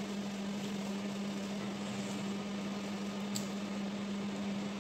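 Steady low hum of a running household appliance over faint hiss, with one faint click about three and a half seconds in.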